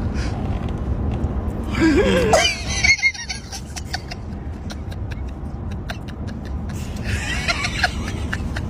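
A man laughing, with a wavering high vocal cry about two seconds in, over the low steady rumble inside a moving car.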